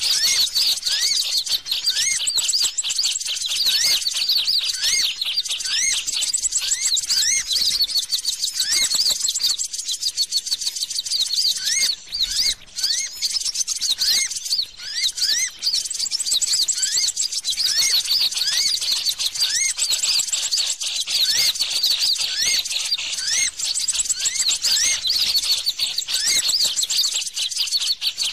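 Bird-trapping lure call: continuous rapid, high-pitched rising chirps, layered over a slower series of short upslurred notes about twice a second.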